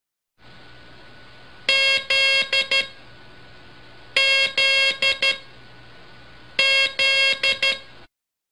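Morse code tone keyed as dah-dah-dit-dit, the letter Z, three times at even spacing. The tone is a buzzy one-pitch beep heard over a steady background hiss that cuts off suddenly near the end.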